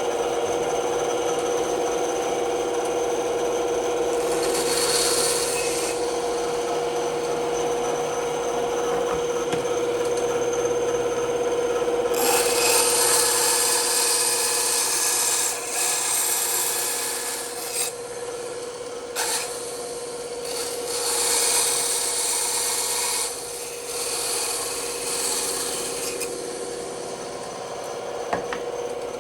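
Bandsaw running with a steady hum, its blade cutting wood in several stretches that add a rasping hiss, the longest lasting about six seconds near the middle.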